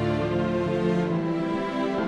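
Background music: sustained held notes over a slowly changing bass line.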